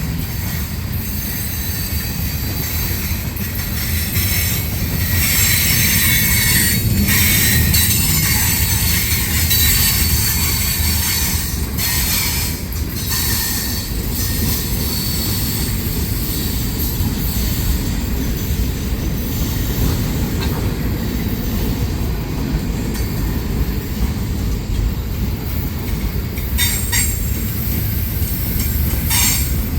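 Freight train rolling past, a steady rumble of wheels on rail with high-pitched wheel squeal and a few sharp clanks.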